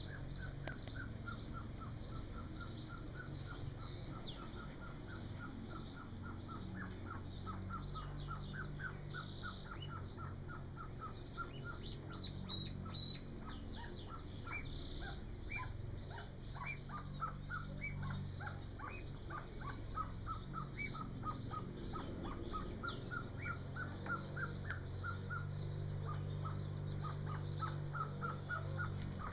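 Golden pheasant chicks peeping: a continuous run of short, high peeps, several a second, over a low steady hum.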